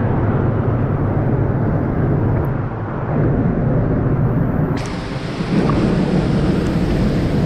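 Steady rumble of a waterfall mixed with water sloshing around a half-submerged camera, muffled and heavy in the low end. About five seconds in the sound turns brighter and splashier.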